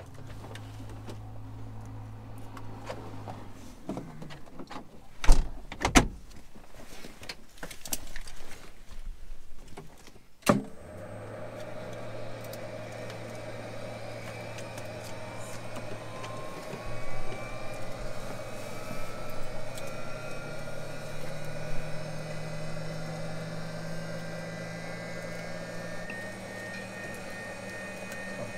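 Inside the cabin of a parked Britten-Norman Islander before engine start: a few loud knocks and clunks about five, six and ten seconds in, typical of the door and latches being shut. After that a steady hum sets in, with a whine that slowly rises in pitch as the aircraft's systems are powered up.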